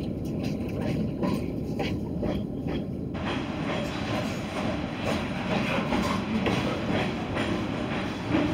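Freight train cars rolling past below at speed, with a steady rumble and repeated clicking of wheels over rail joints.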